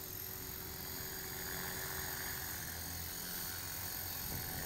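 Align T-Rex 450 electric RC helicopter hovering: a steady high-pitched brushless-motor whine over the low buzz of the rotor, its tone changing slightly about halfway through. The owner says the speed controller makes the motor pulse in RPM, causing a tail wag.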